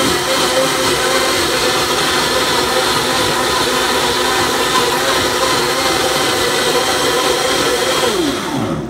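Blendtec blender running its preset smoothie cycle, a loud steady whir as it blends frozen fruit, spinach and water. About eight seconds in the motor winds down, its pitch falling as the cycle ends.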